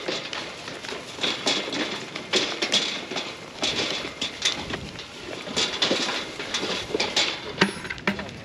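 A herd of goats eating pellet feed from a metal fence-line feeder trough, making irregular crunching and clattering.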